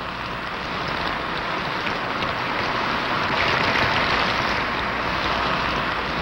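Frozen crinkle-cut French fries sizzling as they bake in an oven: a steady hiss that grows a little louder toward the middle.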